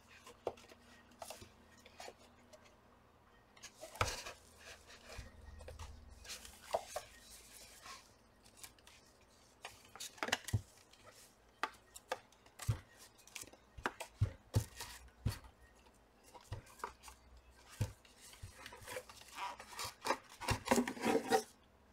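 Hands working a soundbar's housing and internal assembly apart: scattered clicks, knocks and rubbing of parts, busiest near the end.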